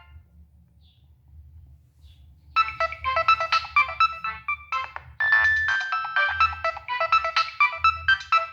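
Nokia 6585i mobile phone playing a polyphonic ringtone: a fast melody of short, bright notes that starts about two and a half seconds in after a pause with only a faint hum, breaks off briefly and goes on.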